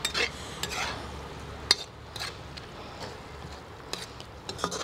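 Onion-and-spice paste frying and being stirred in an iron kadhai: a low sizzle with scraping and about half a dozen sharp clinks of metal against the pan, the loudest nearly two seconds in.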